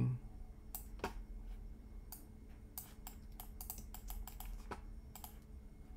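Computer keyboard typing: irregular, light key clicks, coming in a quicker run around the middle.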